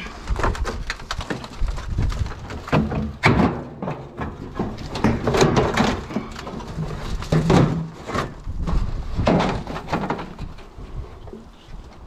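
Sheets of tin being pried apart, lifted and shifted, giving irregular scraping and clattering with several loud knocks.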